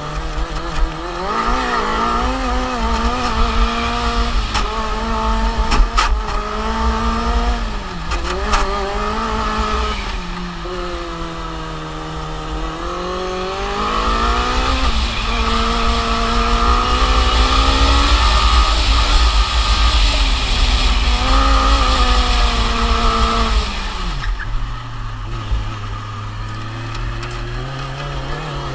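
Formula Student race car's engine heard from on board, its revs climbing and falling again and again as the car accelerates and brakes through the corners. Near the end the revs drop sharply and then build slowly again.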